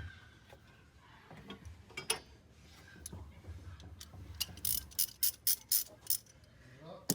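Ratchet wrench clicking as a bolt is turned during a spark plug and ignition coil installation. Scattered clicks give way to a quick run of sharp clicks, about four a second, past the middle.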